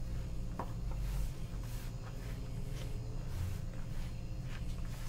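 Hand mixing a wet bread dough in a plastic bowl: soft, irregular squishing and a few light taps, over a steady low hum.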